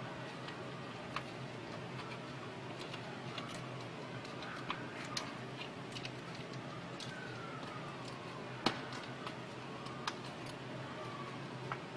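Irregular light clicks and taps, as of small plastic parts and tools being handled, over a steady low hum; one sharper click comes about two thirds of the way in.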